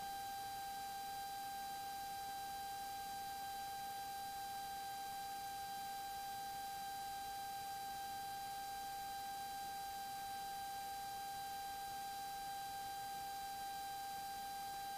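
Steady high-pitched electrical whine with a row of overtones over faint hiss, carried on the aircraft intercom and radio audio fed into the camera's mic input.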